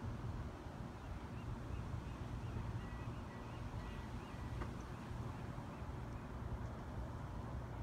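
Steady low outdoor rumble, with a faint run of short, rapid high chirps from about three to five seconds in.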